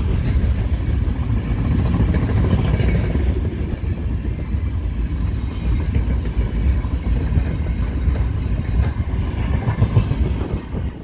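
Freight train's open gondola wagons rolling past close by at speed: a loud, steady rumble of steel wheels on the rails.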